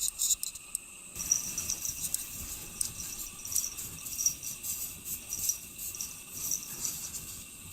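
Insects chirping: short, high chirps repeating every third to half second over a faint hiss, starting after a sudden change in the sound about a second in.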